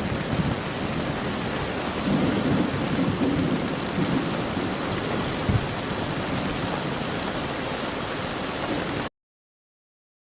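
Steady rain with low rolling thunder rumbling underneath. The sound cuts off abruptly about nine seconds in, to dead silence.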